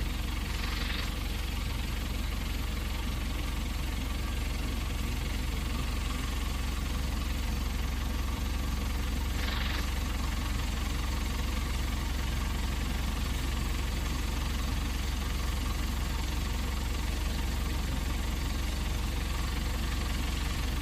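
Engine of a safari canter (open tourist bus) running steadily with a constant low rumble as the vehicle drives along.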